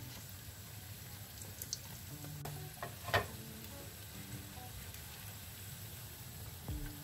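Breaded potato pieces sizzling steadily as they shallow-fry in hot oil in a nonstick pan, with a few clicks of utensils against the pan and one sharper knock about three seconds in.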